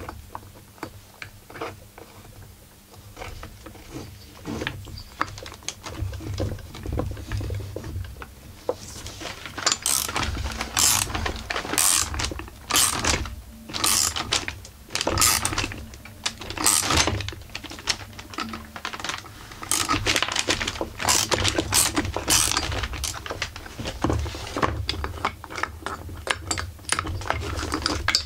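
Metal clinks, knocks and scrapes of a three-arm puller and wrench being worked on the flywheel of a Husqvarna 44 chainsaw, with the puller hard to get a grip with on the stuck flywheel. Faint scattered clicks at first, then from about a third of the way in a run of louder, sharp, irregular clinks with dull handling thumps under them.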